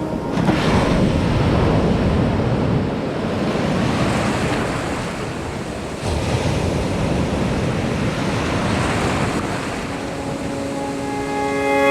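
Ocean surf breaking and washing in, with wind buffeting the microphone; the surge rises about half a second in and again at about six seconds.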